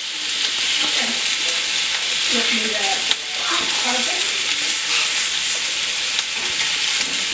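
Bison meatballs sizzling steadily in an oiled cast-iron skillet while a metal spoon rolls them over, with a sharp tap of the spoon against the pan about three seconds in.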